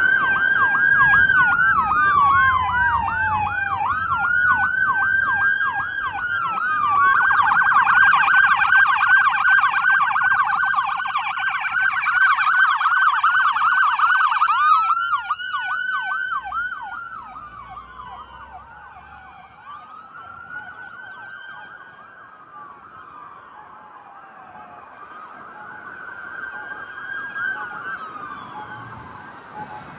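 Emergency-vehicle electronic sirens from responding fire department units: a slow wail overlapping a fast yelp, so more than one siren is sounding. About seven seconds in it switches to a loud fast yelp. Halfway through it goes back to a slow wail and fades into the distance.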